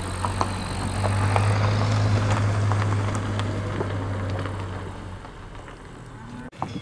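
Motor vehicle engine running with a steady low hum, fading away after about five seconds, with a few light clicks over it; the sound cuts off abruptly near the end.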